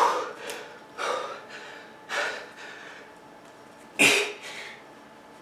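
A man's heavy, strained breathing: about six sharp gasping breaths, the loudest about four seconds in. He is exhausted at muscle failure after 97 push-ups.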